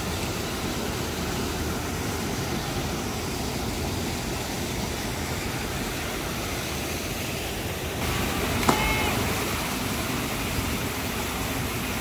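Steady rushing of a small waterfall and stream pouring over granite rocks into a pool, growing a little louder about eight seconds in, with one sharp click shortly after.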